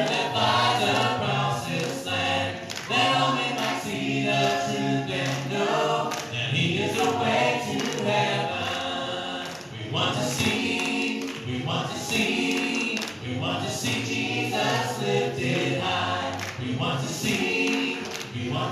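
Group of voices singing a worship song.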